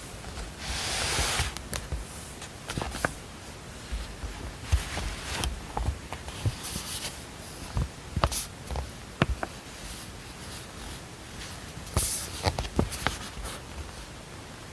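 Steady white-noise hiss with desk sounds on top: a brief paper rustle about a second in, then scattered light clicks and taps, as of a pen and small objects being handled on a desk.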